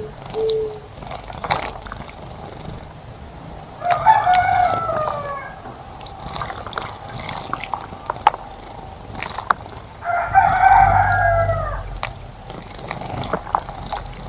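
A rooster crowing twice, about six seconds apart, each crow lasting about a second and a half and falling in pitch toward its end. Scattered sharp ticks and drips of water, and faint high chirping from other birds, run between the crows.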